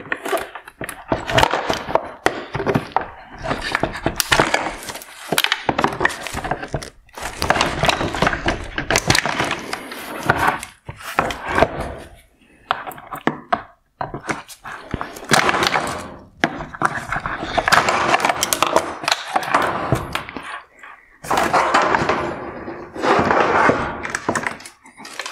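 Plastic wire-harness clips being pried out of a plastic headlight housing with pliers, one by one: repeated irregular cracks, snaps and knocks of hard plastic, with a few short pauses.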